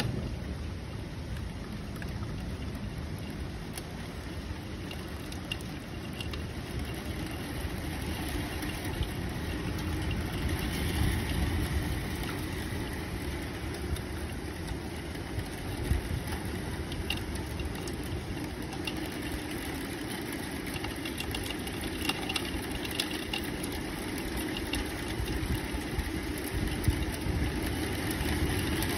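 Thunderstorm rain: a steady rushing noise with a low rumble underneath and scattered small ticks of drops.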